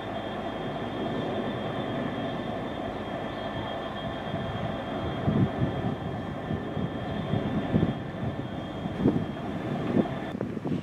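Class 66 diesel locomotive's two-stroke EMD V12 engine running with a steady drone and a thin high whine as it moves slowly. From about five seconds in, a run of loud irregular clanks and thuds joins it.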